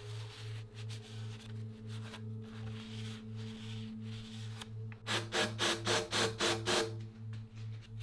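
Background music with a low pulsing beat and held tones. About five seconds in comes a quick run of about ten squeaky rubbing strokes: a rag wiping inside a bicycle frame's bottom bracket shell.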